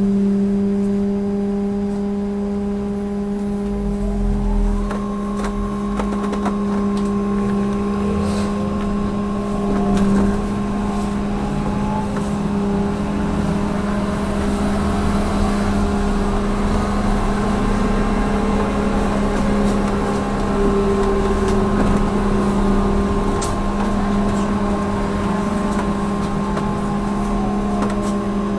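Electric trolleybus heard from inside its cab while driving: a steady electrical hum with whines from the traction drive that rise and fall in pitch as it speeds up and slows, over road rumble and a few light clicks.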